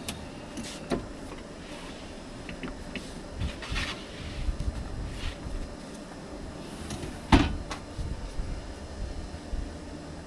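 Campervan double swivel seat base being turned by hand: metal clunks and knocks with a brief scraping stretch, the loudest clunk about seven seconds in.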